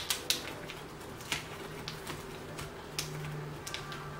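A handful of sharp, irregular clicks and ticks as fingers work the plastic video cable connector and taped cable on the back of a laptop LCD panel, over a faint steady low hum.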